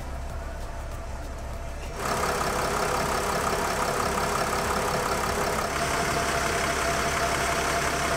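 2007 Dodge Sprinter's diesel engine idling steadily at about 676 rpm, freshly filled with new oil and running so it can be checked for leaks. It gets louder about two seconds in, heard close to the open engine bay.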